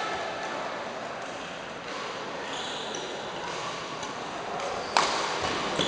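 A badminton racket hits the shuttlecock once with a sharp crack about five seconds in, over the reverberant background noise of a sports hall.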